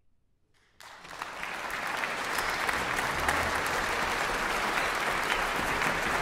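Near silence, then a concert audience's applause starts about a second in, swells over the next second and holds as steady clapping.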